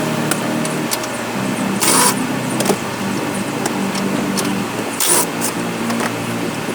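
Power-tool work loosening the nuts on a rear shock's top mount: a steady motor hum that shifts in pitch, broken by two short hissing bursts about two and five seconds in.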